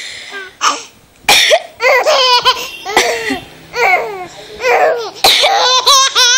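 A four-month-old baby laughing in short, high-pitched bursts of squealing giggles. Sharp coughs come in between, about a second in and again near the end, and each one sets off more laughter.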